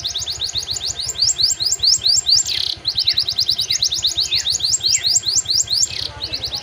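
Domestic canary singing a fast trill of short notes that sweep down, about six a second, with a few longer falling notes in between and brief breaks in the trill.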